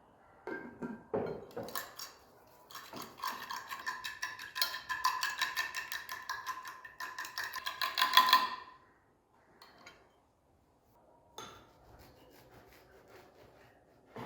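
Rapid stirring in a bowl: a utensil clicks against the bowl several times a second for about six seconds, the bowl ringing with each stroke, then stops abruptly. A few knocks of kitchenware come before it.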